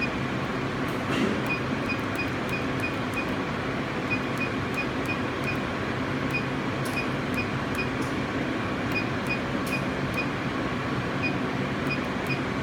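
A 43S+ continuous inkjet coding printer running with a steady mechanical hum. Over it, a quick regular series of short high beeps, a few a second, with faint light clicks as text is keyed in on its keypad.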